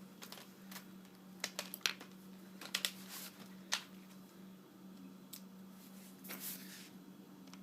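Small sharp clicks and taps of plastic and metal as an LED light bulb is handled and taken apart, scattered irregularly, with a short scrape near the end. A faint steady hum runs underneath.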